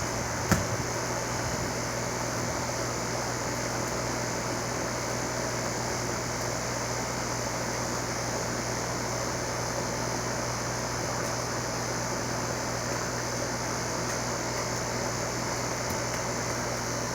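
HVAC unit's fan running steadily: a constant rush of air over a low, even hum. A single short click about half a second in.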